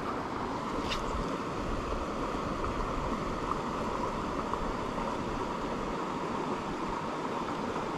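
Steady rush of a small mountain freestone creek running over rocks, with a single short click about a second in.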